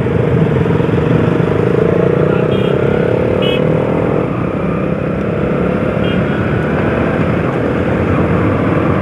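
Motorcycle engine running on the move, its pitch rising slowly over the first four seconds and then dropping back to a steadier note. A few short high beeps sound briefly in between.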